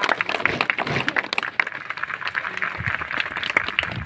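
Crowd applauding: many hands clapping in a dense, irregular patter.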